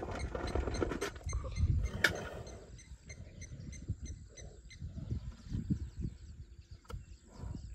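Young African elephant eating feed out of a bucket: trunk rustling in the bucket and chewing, loudest in the first two seconds, with a sharp click about two seconds in and softer irregular knocks after. A bird chirps in quick, evenly spaced notes in the background.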